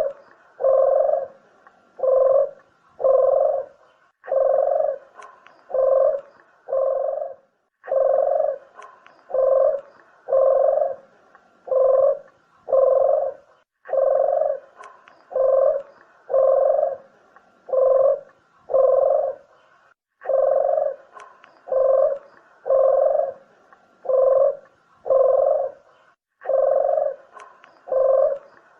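Barbary dove (burung puter) cooing: a low coo repeated in phrases of about four to five notes, each phrase coming again every few seconds in a regular cycle. It is a lure call recording for attracting doves.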